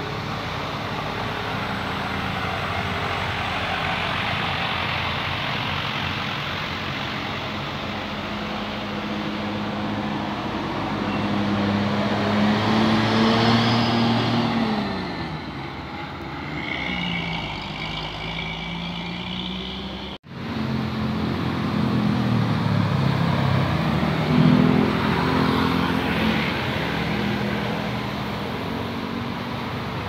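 Road traffic with heavy diesel vehicles, a loaded truck and tour buses, driving past. Their engine notes rise and fall in pitch as they pass. The sound drops out suddenly for a moment about two-thirds of the way through.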